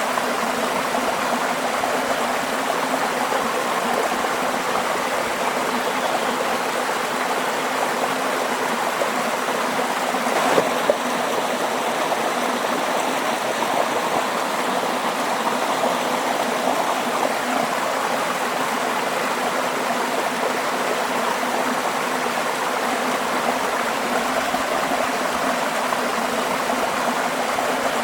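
Steady rushing of flowing water, like a stream, even and unbroken, with two short knocks close together about ten and a half seconds in.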